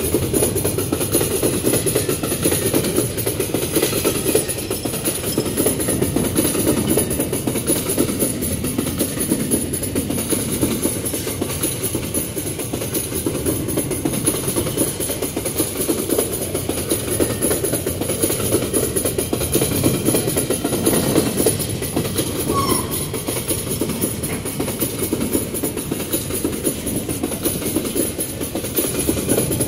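Empty steel ore gondola wagons rolling past close by, a steady rumble and clatter of wheels on rail.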